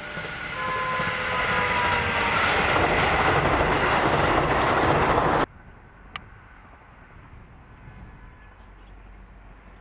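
Electric express train passing close by: a rising rush of wheels and running gear with a faint, slightly falling whine, cutting off abruptly about five and a half seconds in. After that only quiet outdoor background, with one sharp click.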